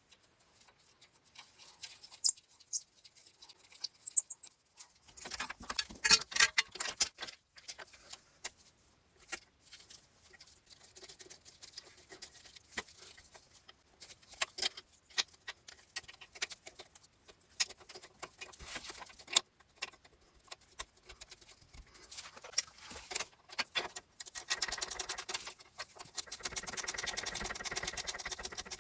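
Scattered clicks and light metallic knocks of hand work on a new ABS wheel speed sensor and its brackets. Near the end comes a run of fast, evenly spaced clicking.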